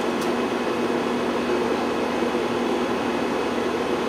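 Steady drone of an idling vehicle engine, a constant hum that holds one pitch without revving.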